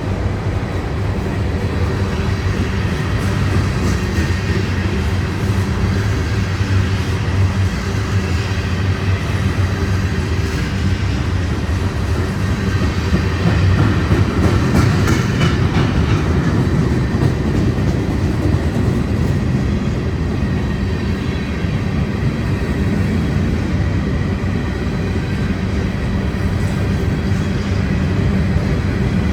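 Union Pacific manifest freight train rolling steadily past, its wheels running on the rails.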